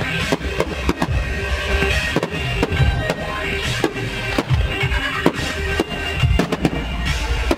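Music with heavy bass, cut by a quick, irregular run of sharp bangs from aerial firework shells launching and bursting.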